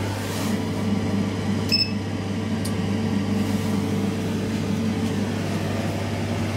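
Steady low hum inside a stationary SMW traction elevator car standing with its doors open, with a short high beep about 1.7 seconds in and a faint tick a second later.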